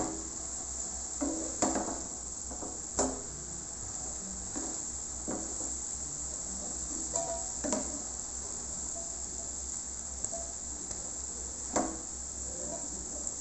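Spatula stirring grated carrot in a nonstick pan: soft scraping and several sharper knocks of the spatula against the pan, over a steady sizzle of the carrot frying in ghee.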